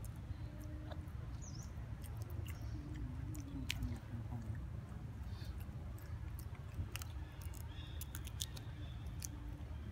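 Steady low rumble of outdoor ambience, with scattered small sharp clicks that come more often in the second half, and a faint wavering low call about three to four seconds in.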